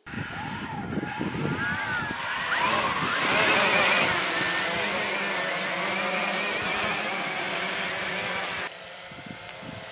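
High-pitched motor-and-propeller whine of several quadcopters in flight, their pitches wavering, rising and falling with throttle, over a steady hiss. It drops abruptly to a quieter level near the end.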